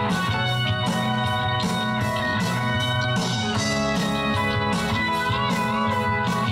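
Rock band playing live: electric guitars over a bass line and a steady drum beat.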